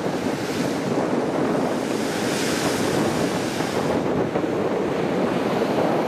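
Ocean surf breaking and white water washing over a flat rock shelf in a steady rush, with a louder hissing surge about halfway through.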